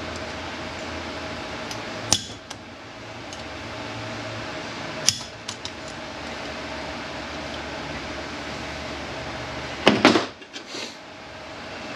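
Hand tools and steel transmission parts clinking while a snap ring is worked out of an automatic transmission: a sharp metal click about two seconds in, another about five seconds in, and a louder clatter of several hits near the end, over a steady shop hum.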